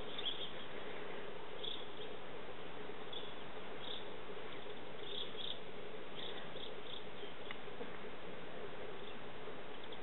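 Outdoor background ambience: a steady hum and hiss, with short high chirps scattered throughout.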